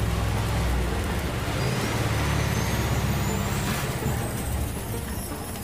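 Model Hero's engine (aeolipile) heating over a spirit-lamp flame, with a steady low rumble and hiss. A faint high whistle rises in pitch from about a second and a half in to about four seconds in.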